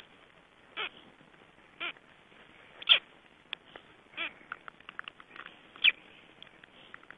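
Black stork chicks calling from inside their eggs, which is the sign that hatching is close: five short calls about a second apart, the third the loudest. Small clicks come in between, in the second half.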